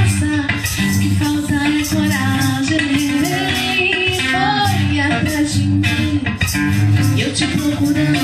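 A woman singing a song into a microphone, accompanied by an electric guitar.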